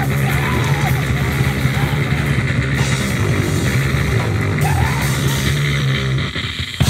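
Live rock band playing loud and heavy: electric guitar over a full drum kit. The music stops short for a moment just before the end, then crashes back in.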